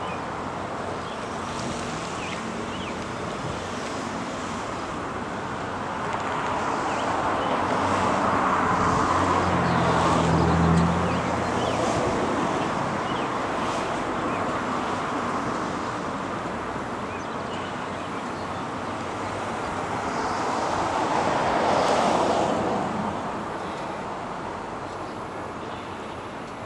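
Road traffic noise: a steady hum of passing vehicles, with one vehicle going by about ten seconds in and another a little past twenty seconds in.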